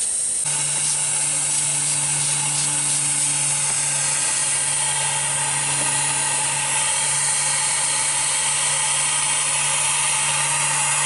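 Compressed air hissing steadily from a leaking air-brake line on a Volvo 780 heavy-duty truck, where a quick-connect fitting's seal has gone bad. A steady low hum joins in about half a second in.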